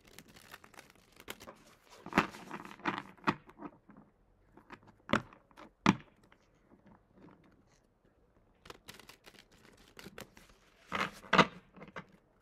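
Tarot cards being shuffled and handled: a run of papery rustles and sharp card slaps, loudest about two seconds in, around five to six seconds, and again near eleven seconds, with a short lull in between.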